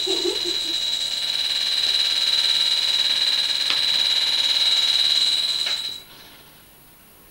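A steady high-pitched whistling tone over a hiss, cutting off abruptly about six seconds in.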